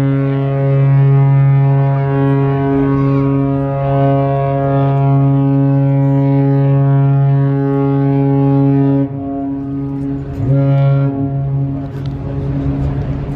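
Deep ship's horn of the container ship CMA CGM Marco Polo: one long, steady blast that cuts off about nine seconds in, then a second, shorter blast about a second and a half later.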